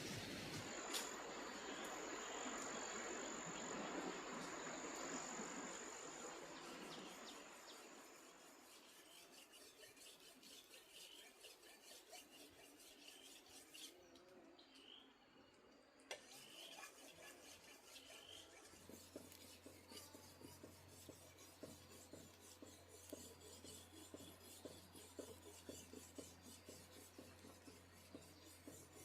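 Faint, rapid scraping strokes, like filing or rubbing, repeated throughout. A high steady whine runs through the first several seconds, and a low hum comes in about two-thirds of the way through.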